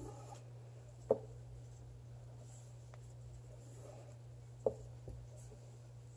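2 mm cotton macrame cords rustling and dragging against each other as clove hitch knots are pulled tight. Two brief sharper sounds come about a second in and at about four and a half seconds.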